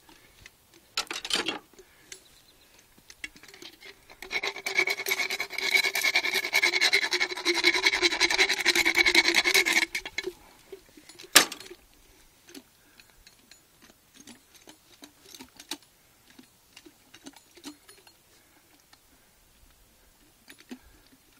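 Equine dental float rasping against a horse's molars, filing down sharp hooks on the teeth: a brief scrape about a second in, then about six seconds of continuous rasping from about four seconds in. A single sharp click follows soon after the rasping stops.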